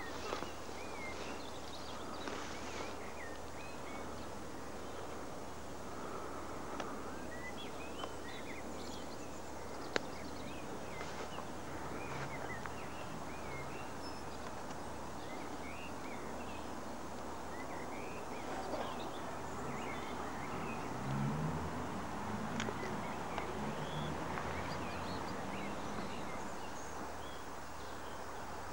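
Dawn chorus of small birds chirping and twittering throughout, over a steady hiss. A single sharp click comes about ten seconds in, and a few short low calls come around twenty seconds in.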